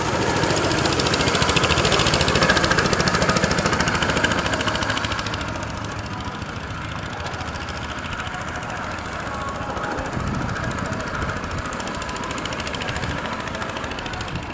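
Small go-kart engines running, loud as two karts take a bend close by. After about five seconds the sound drops to a quieter, more distant drone as they move off round the track.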